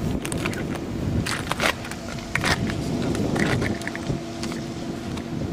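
Steady low machinery hum, with scattered sharp clicks and knocks as fishing tackle is handled.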